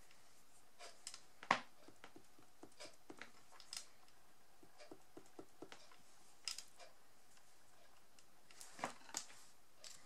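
Faint, irregular taps and clicks of a marker tip dabbing small dots onto card, with light handling of the pen; the loudest tap comes about a second and a half in.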